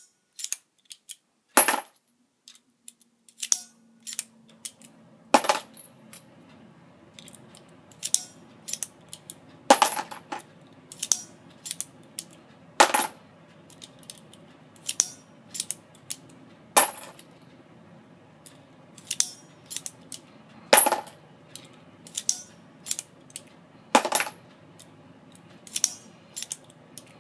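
Brass 7.62x25mm Tokarev cases clinking and the hand priming tool clicking as cases are primed one after another with CCI 500 primer strips. The sharp metallic clicks come every second or two at an uneven pace, some with a brief high ring. A faint steady hum runs underneath from about four seconds in.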